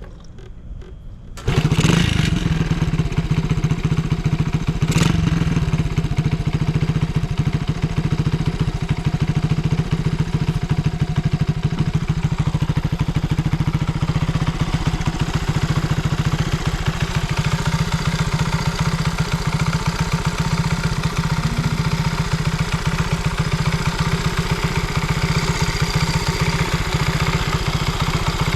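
Vintage Honda Monkey Z50J's single-cylinder four-stroke engine, bored up to 88cc, starts from cold about a second and a half in and settles into a steady idle with no abnormal noise.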